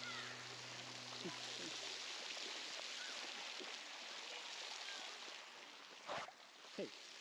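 Steady rush of running water, with background music fading out about two seconds in and two short thumps near the end.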